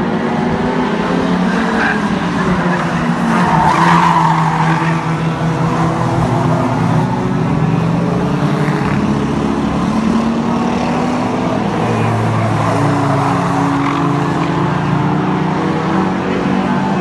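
Several oval-racing cars' engines running and revving up and down as they lap the track, with tyres skidding; the loudest rush comes about four seconds in.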